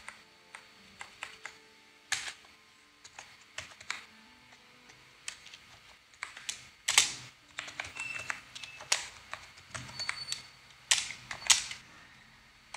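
Computer keyboard being typed on: irregular bursts of keystrokes, with a few louder key presses scattered among them.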